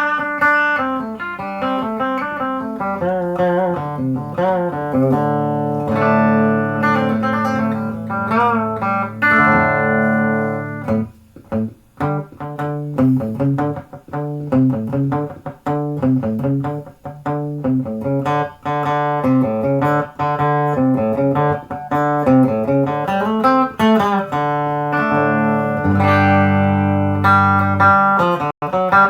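Peerless ES-345 electric guitar played through a compressor pedal into a Crate amp: a picked melody of single notes and chords, with some chords left ringing for several seconds and a short break about twelve seconds in.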